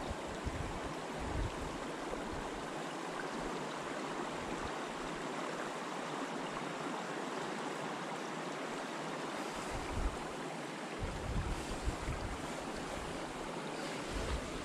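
Wind rumbling on the microphone in gusts, near the start and again through the last few seconds, over a steady outdoor hiss of wind.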